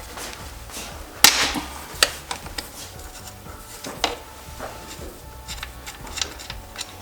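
Tools and metal parts clanking and knocking as a dirt bike is taken apart. The loudest is a sharp clank about a second in, with a short ring after it, and lighter clicks and knocks follow.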